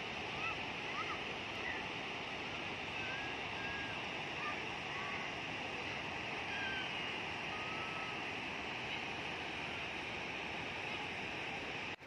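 Steady rush of the Panimur waterfall on the Kopili River, white water pouring over rock ledges and through the rapids.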